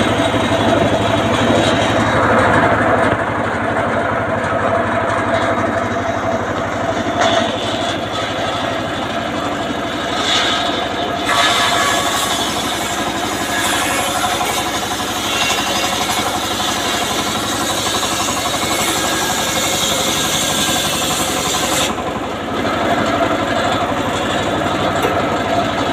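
Home-built engine-driven circular sawbench running steadily, its blade ripping a teak plank lengthwise. A steady engine drone sits under the hiss of the cut, which grows brighter from about eleven seconds in until about twenty-two seconds.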